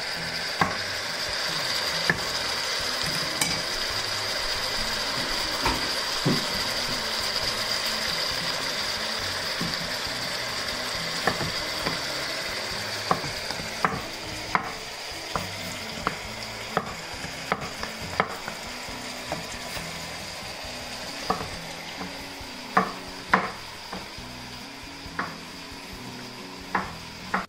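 Green beans, onion and oyster mushrooms sizzling steadily in a stainless steel frying pan, the hiss slowly fading. From about halfway on, a chef's knife gives sharp, irregular knocks as it cuts zucchini on a wooden board.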